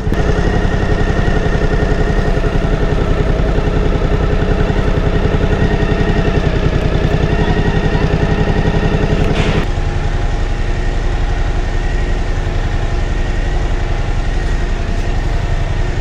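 Suzuki V-Strom 1050's V-twin engine idling steadily on the stopped motorcycle. About ten seconds in the sound turns duller, the idle carrying on underneath.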